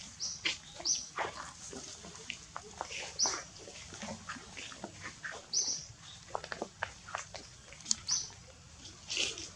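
Short high-pitched animal calls repeating every two to three seconds, over scattered light clicks and rustles.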